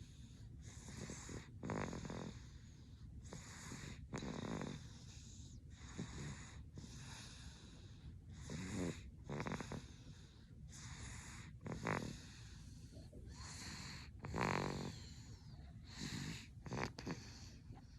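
Snoring in sleep: rasping, fluttering breaths that come irregularly every one to two and a half seconds, the loudest about three quarters of the way through.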